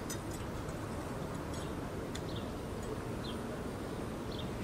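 Steady low outdoor background rumble, with a few faint short high chirps scattered through it.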